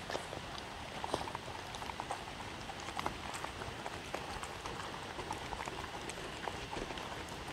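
Two dogs eating from wooden bowls right at the microphone: irregular chewing and lapping, with quick clicks of teeth and tongue against the food over a steady hiss.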